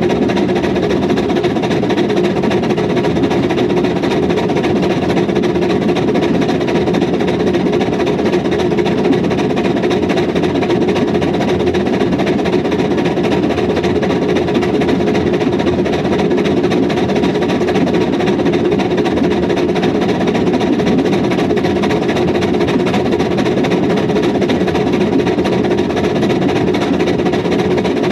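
Hunslet No 827 "Sybil", a small narrow-gauge steam locomotive, running steadily along the line, heard from on the engine itself: the exhaust and the clatter of wheels on rail, at an even, loud level.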